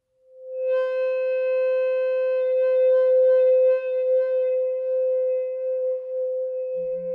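Amplified vibraphone feedback tone: a steady, pure pitched tone that swells up out of silence within about half a second and then holds, with fainter overtones ringing above it. It is sustained by a loop between microphones in the vibraphone's resonators and transducers on its bars. A lower hum comes in near the end.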